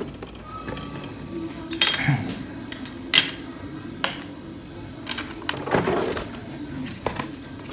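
Handling of a plastic model kit box and its parts: irregular short clicks and clacks, about six of them, over a low steady hum.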